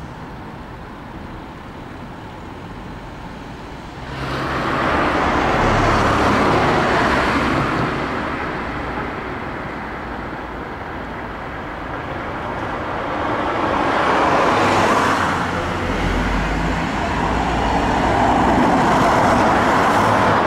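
Road traffic on a city street. Cars pass by three times, their tyre and engine noise swelling and fading each time.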